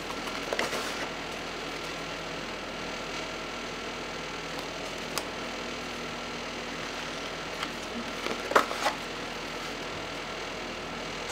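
Paper desk-calendar pages being handled and flipped: a short rustle about half a second in, a light click about five seconds in, and a louder flurry of rustles near nine seconds, over a steady background hum.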